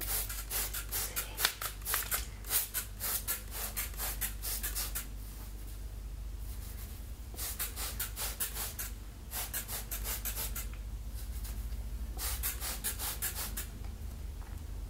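Plastic trigger spray bottle spritzing water onto hair, in quick runs of short sprays with short pauses between runs.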